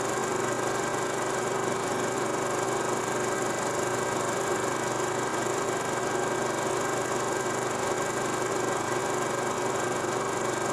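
Steady hum and hiss with several constant tones at an unchanging level, with no separate clicks or cuts.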